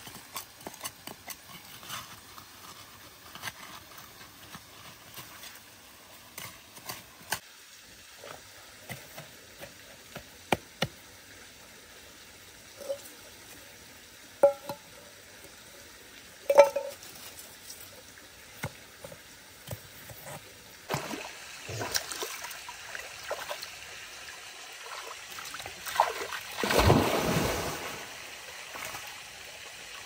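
Digging by hand in stony soil: repeated knocks and scrapes of a hand hoe's metal blade and falling earth, with a metal bowl clinking against stones a few times about halfway through. In the last third, water splashing as a dog swims in a shallow creek, with one longer swell of splashing near the end.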